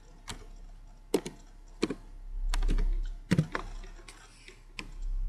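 Computer keyboard keys being typed: a handful of separate sharp keystrokes, some in quick pairs, as a folder name is entered.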